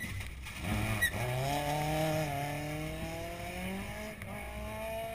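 Rally car engine revving hard as the car passes, its pitch climbing and then stepping down at gear changes before climbing again near the end. A short crack about a second in.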